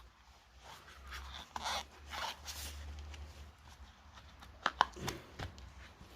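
Hands handling small rear-suspension parts: rustling and scraping, then a couple of sharp clicks about three-quarters of the way through.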